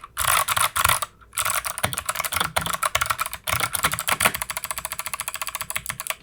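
Fast typing on an Anne Pro 2 mechanical keyboard with clicky Kailh Box White switches and PBT OEM-profile keycaps: a dense run of sharp clicks. The clicks break briefly about a second in, then settle into a quicker, even rhythm in the second half.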